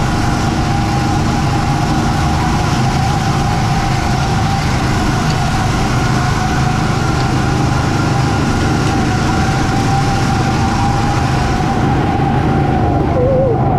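Steady machine drone with two constant whining tones over it.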